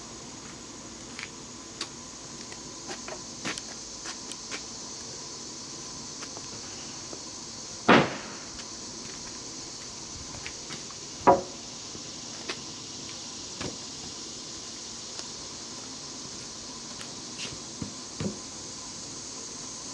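Scattered light knocks and clicks, with two loud single knocks about eight and eleven seconds in, over a steady high hiss.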